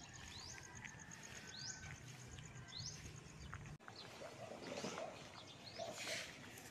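Faint outdoor ambience: a bird gives a short rising chirp about once a second, over a fast, even, high-pitched ticking trill. After a break about four seconds in, a few short noisy scuffs follow.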